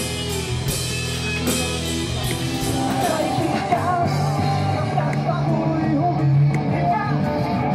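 Live rock music with electric guitar. About halfway through it switches to a different full-band performance with singing.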